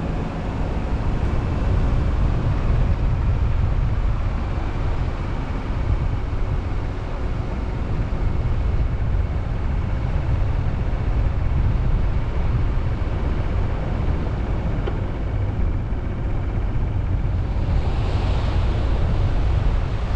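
Steady low rumble of a car driving, road and wind noise on the camera's microphone, with a short rush of brighter hiss near the end.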